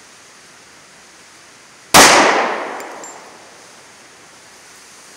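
A single .45 ACP pistol shot firing a hollow-point round, about two seconds in, its echo trailing off over about a second.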